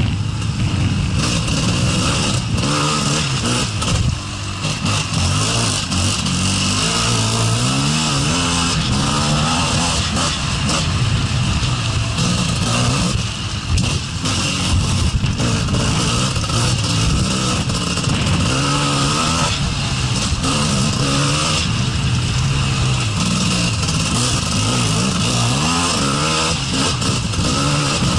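Gas Gas EC 250 two-stroke enduro motorcycle ridden over a dirt trail, its engine revving up and down without pause as the throttle is worked. There are brief throttle-offs about four and thirteen seconds in.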